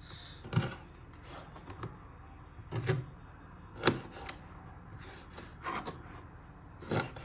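Chef's knife chopping the nails off raw chicken feet on a plastic cutting board. The blade strikes the board in a series of sharp, irregularly spaced knocks, roughly one every second or so.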